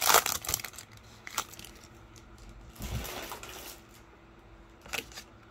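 Foil trading-card pack wrapper crinkling as it is pulled open, loudest in the first half-second, then a softer rustle of wrapper and cards about three seconds in, and a light tap near the end.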